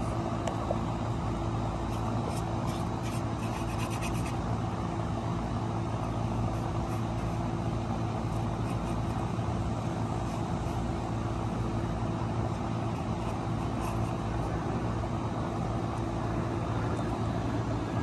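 A steady low mechanical hum with a constant drone that does not change.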